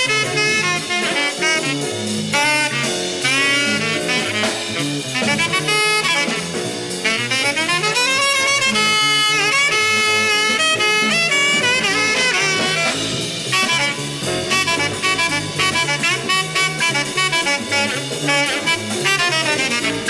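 Bebop jazz from a septet recording: a tenor saxophone plays a running solo line over bass, piano and drums.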